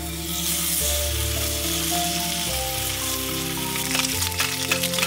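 Bacon strips sizzling as they hit a hot frying pan, the sizzle starting suddenly, with sharper crackles and pops from about four seconds in. Background music with held notes plays under it.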